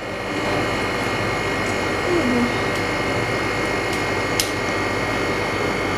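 Steady whir of the LCD freezer machine's refrigeration unit and fan running, with one light click about four and a half seconds in.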